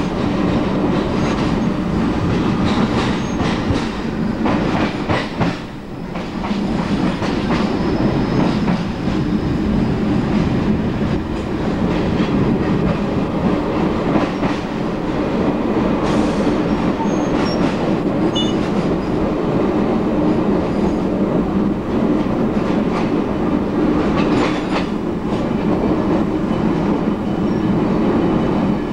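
Electric suburban train running along the line, heard from inside: a steady rumble of wheels on rail with clickety-clack over the rail joints and short spells of clatter a few times.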